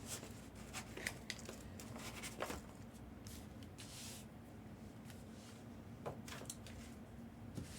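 Quiet, faint rustling and light clicks from trading cards and pack wrappers being handled and sorted, over a low steady hum.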